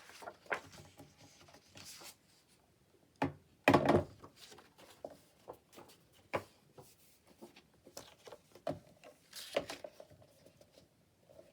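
Paper pages being handled and folded on a table: scattered short rustles and light knocks, with a louder burst of paper noise about four seconds in and another near the end.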